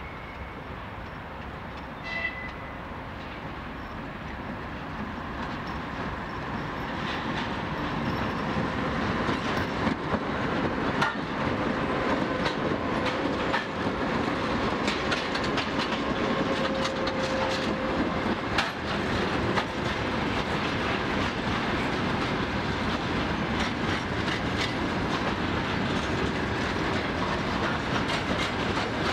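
Freight train of hopper wagons rolling past, its wheels clicking over the rail joints. It grows louder over the first ten seconds and then runs steadily.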